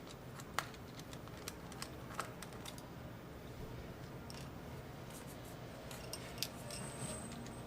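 Faint, scattered clicks and light scraping of a small screwdriver working on cable connectors inside an opened MacBook Air, over a low steady hum.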